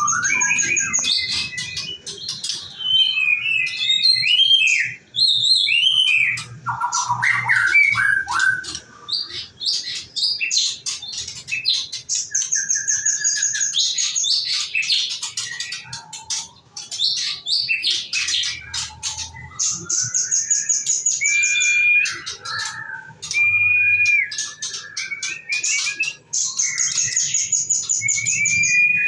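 Female white-rumped shama (murai batu) singing a long, varied song of rapid high trills, whistled glides and chirps, with only brief pauses.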